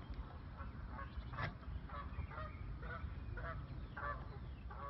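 Geese honking repeatedly, short separate calls about two a second, over a steady low rumble of wind.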